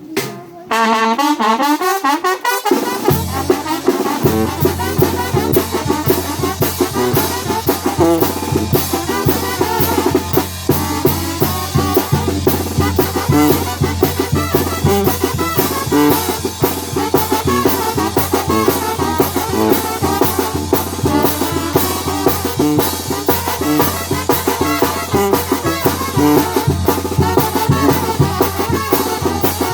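A banda brass ensemble playing: trumpets and trombones over drums, with a steady low bass line. The music starts abruptly just under a second in.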